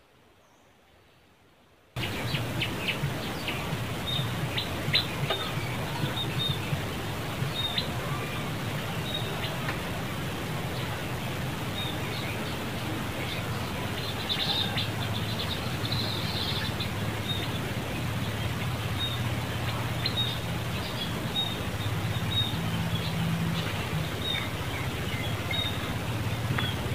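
Forest ambience: many short high chirps over a steady hiss and a low hum, starting after about two seconds of near silence.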